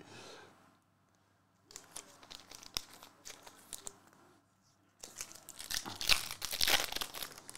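Foil wrapper of a 2022 Topps Chrome Formula 1 Lite trading-card pack crinkling as it is picked up and handled. It is then torn open, with louder, denser crackling over the last two and a half seconds.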